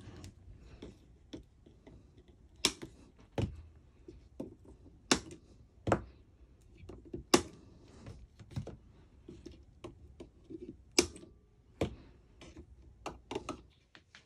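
Wire cutters snipping through the leads of old electrolytic filter capacitors on an amplifier's turret board, a sharp click with each cut, about a dozen cuts spaced irregularly, some of them in quick pairs.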